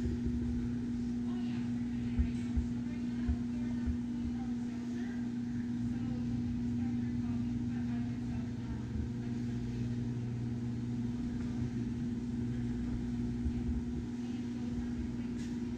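Steady low mechanical hum holding a constant pitch, with faint voices and a few soft knocks in the background.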